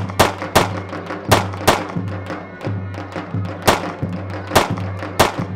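Folk dance music: a drum struck in a loose, uneven rhythm of sharp strokes over a steady low drone.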